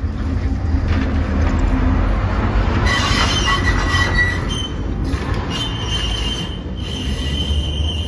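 Two-axle tram running on rails, its steel wheels rumbling, with high-pitched wheel squeal about three seconds in and again from about five and a half seconds on.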